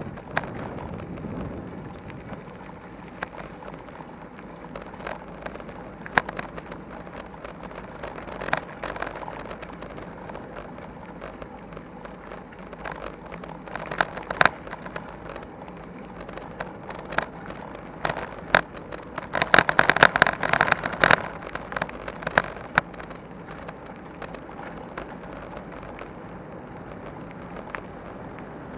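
Bicycle rolling over a gravel path, recorded by a camera on the bike's mount: steady tyre and rattle noise with scattered sharp knocks from bumps. The rattling gets louder and denser for about two seconds, around twenty seconds in.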